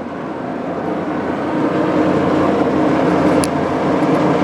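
Axelson gear-head metal lathe running steadily with its headstock freshly oiled, its gears spinning with a smooth, even roar. The sound grows louder over the first two seconds, and a brief small click comes about three and a half seconds in.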